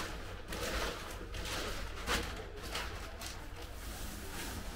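Plastic sheet rustling in short, irregular crinkles as it is tucked over dough in a basin, over a steady low hum.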